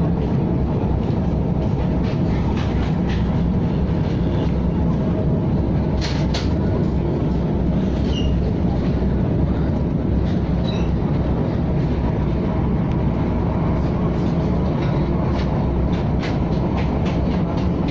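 KTM ETS electric train running at speed: a steady low rumble with a few faint clicks over it.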